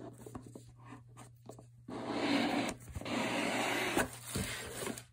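Hands opening a watch presentation box and sliding a leather pouch out of it: a few light taps, then two stretches of rubbing and scraping about a second each, and a short knock near the end.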